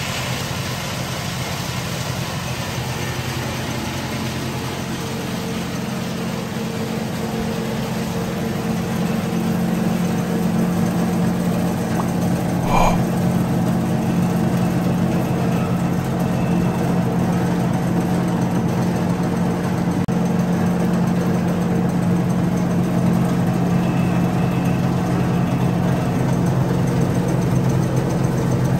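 Two-blade coconut husk chipping machine running steadily, its electric motor and cutter drum giving a constant hum that grows a little louder about a third of the way in. One short knock about halfway through.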